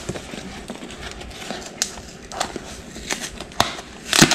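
Cardboard mailing box being opened by hand: packing tape crackling as it is peeled off, and cardboard scraping and rustling in irregular sharp crackles, with a louder one near the end.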